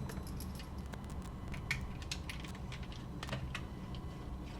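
Light, irregular clicks and taps of small screws and a screwdriver against the plastic shell of a Sony WM-FX491 cassette walkman as it is screwed back together.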